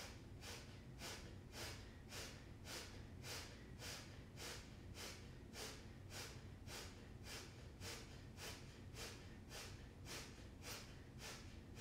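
Kapalabhati (breath of fire) breathing: short, forceful exhalations through the nose, faint and evenly paced at about two a second.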